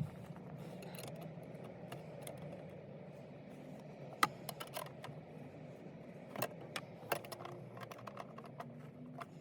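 Scattered light clicks and clinks of hand work on car interior parts, a few separate sharp ticks, loudest a little after four seconds in, over a steady low hum.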